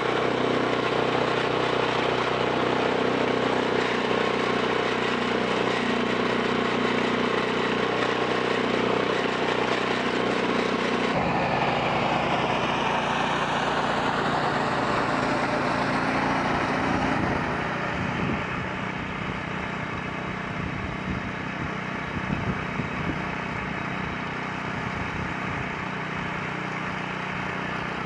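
Bolens 1050 garden tractor engine running steadily. About eleven seconds in, the sound changes abruptly and falling whines follow for several seconds, then it settles quieter and rougher near the end.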